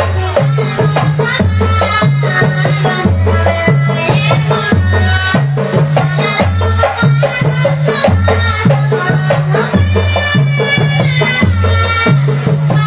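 Rebana ensemble playing sholawat: voices singing over hand-struck frame drums with jingles (genjring), and a deep jidor bass drum sounding on a steady beat.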